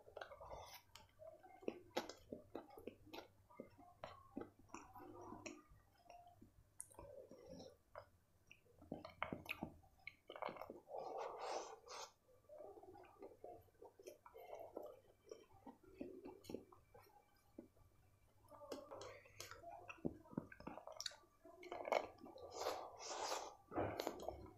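Close-miked chewing of Chinese bhel, crispy fried noodles eaten by hand, with many irregular sharp crackles and short mouth sounds.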